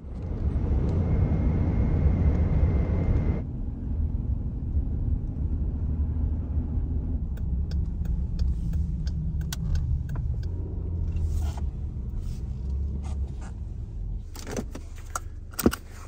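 A car driving, a steady low rumble of engine and road noise. It changes abruptly about three and a half seconds in, and there is a run of clicks and rattles near the end.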